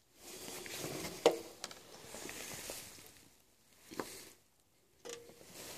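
Handling noise as a cooking pot is moved over a small wax stove: rustling with a sharp metal clink about a second in and another knock at about four seconds.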